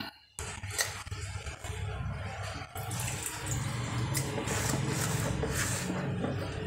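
Aluminium foil crinkling and crackling as it is pressed and folded tightly around the rim of a plastic basin.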